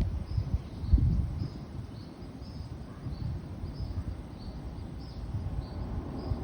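Outdoor ambience: a short high chirp repeats about twice a second over low, uneven rumbling, with a single thump about a second in.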